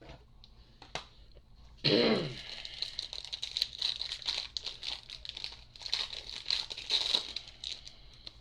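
A baseball card pack wrapper being torn open with a sharp rip about two seconds in, then crinkling and rustling as it is pulled apart and the cards come out.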